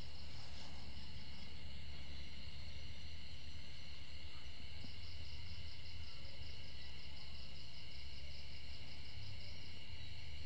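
Night insect chorus: crickets trilling steadily in several overlapping pitches, with a low steady hum underneath. A pulsing trill joins at the top of the chorus about halfway through.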